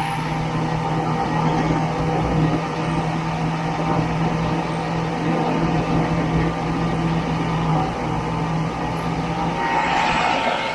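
Snowmobile engine running steadily under way, heard from the rider's seat as a constant hum over track and wind noise. A hiss swells briefly near the end.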